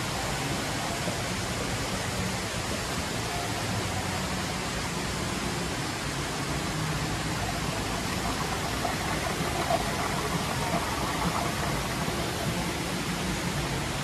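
Steady rush of running water from the fountains and rock-pool water features of an indoor conservatory garden.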